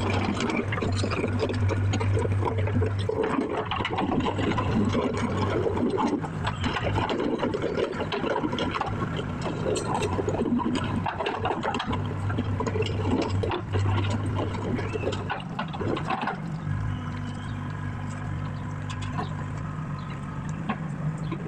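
A heavy machine's engine running, with rushing, clattering noise over a steady low hum; about sixteen seconds in the hum steps up in pitch and runs steadier.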